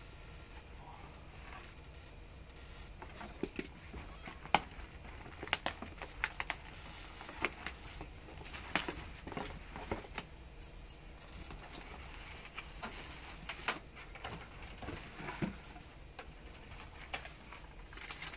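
Cardboard boxes being unpacked by hand: irregular taps, knocks, scrapes and rustles as the outer box's flaps are opened and flat inner cardboard boxes are lifted out and set down, with the sharpest knock about four and a half seconds in.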